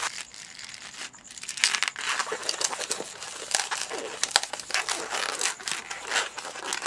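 Qualatex latex modelling balloons crinkling as they are twisted by hand and rub against each other and the fingers, a dense run of irregular short crackles from about a second and a half in, while a small bubble is twisted in for a paw.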